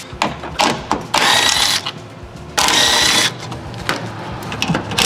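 Red cordless screwdriver running in two bursts of about a second each with a steady whine, driving out screws from a truck's front-end panel. A few sharp clicks come in the first second.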